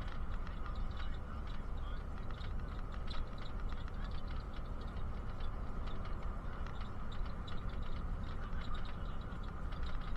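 Inside a moving Bus Éireann bus: a steady low rumble of engine and road, with a constant irregular patter of small ticks and rattles.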